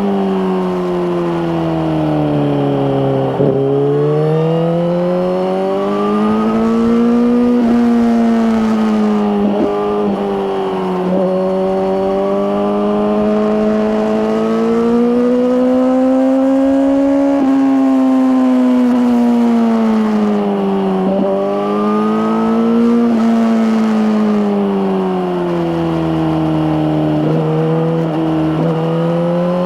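A 2023 Suzuki GSX-R1000R's inline-four engine running through an Akrapovic slip-on exhaust while being ridden. The engine note climbs and falls slowly as the throttle is opened and eased, with short breaks in the note every few seconds.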